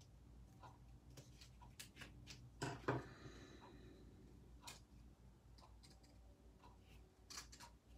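Faint, irregular small clicks and taps of paper crafting by hand: fingers and a pick tool working a ribbon bow and glue dot against card stock. A louder knock and rustle comes a little under three seconds in, as the plastic-handled tool is set down on the cutting mat.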